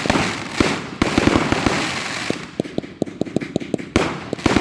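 Fireworks going off: a rapid string of crackling pops over a hiss, with stronger bursts about a second in and near the end.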